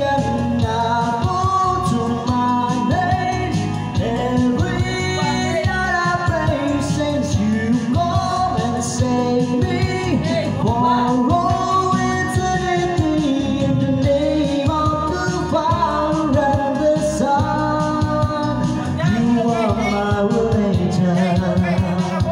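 A man singing into a handheld microphone over an instrumental backing track, with long held notes that waver in pitch.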